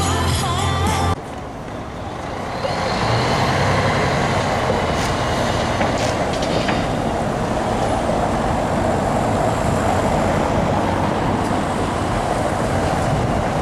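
Background music cuts off about a second in, giving way to steady city street traffic: cars passing, with a few knocks in the middle.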